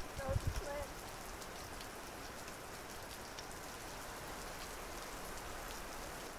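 Steady even hiss with faint scattered high ticks, like outdoor night ambience. In the first second there are a few low thumps and a brief faint voice.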